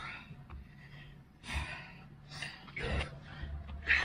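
Heavy breathing of men working through a long burpee set: a series of hard gasping exhales, roughly one a second, some with a low thump under them, the loudest near the end.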